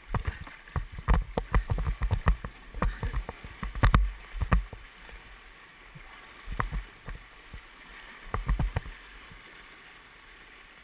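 Whitewater splashing and slapping against a Nova Craft open canoe and the camera as the canoe swamps in a rapid: many sharp, irregular splashes and knocks over the first five seconds, a few more later, over the steady rush of the rapid.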